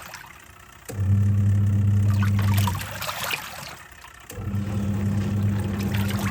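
Twin-tub washing machine running its wash cycle. The motor hums in runs of about two seconds, with short pauses as the pulsator stops and reverses, and water swishes in the tub throughout.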